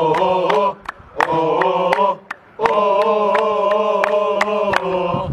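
A group of men chanting a football supporters' song in unison, in three phrases with two short breaks, to steady hand claps about three a second.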